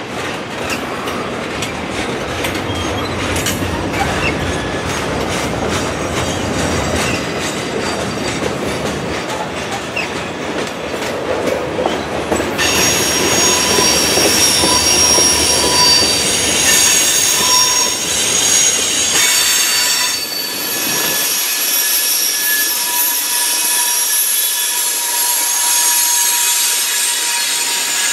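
Freight cars of Norfolk Southern manifest train 334 rolling past, their wheels rumbling and clicking over the rail. About halfway in, a steady high-pitched wheel squeal with several ringing tones sets in and continues. The low rumble falls away about three-quarters of the way through.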